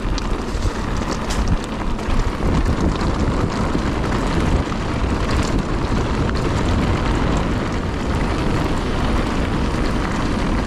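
Mountain bike rolling along a rough trail: a steady rush of wind on the microphone over rumbling tyre noise, with a few sharp rattling clicks.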